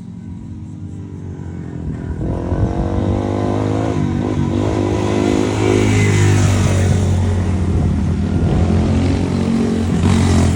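Motorcycle engine revving up, rising in pitch and getting louder about two seconds in, then running steadily loud.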